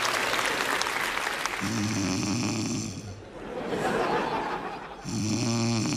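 A woman snoring in her sleep: a snore trails off at the start, then two more snores about three seconds apart, each about a second long, with a breathy exhale between them.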